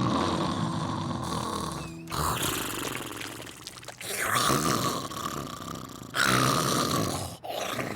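Daffy Duck's exaggerated cartoon snoring, one loud snore after another every second or two.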